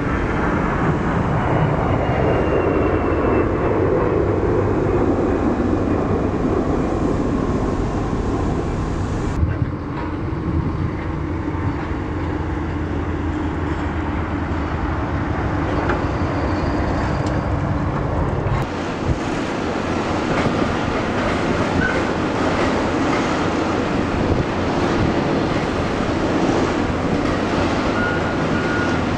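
Steady, loud jet airliner engine rumble at an airfield, changing suddenly twice: first with a jet taking off, then a regional jet climbing out, then airliners at a gate. A faint steady tone joins near the end.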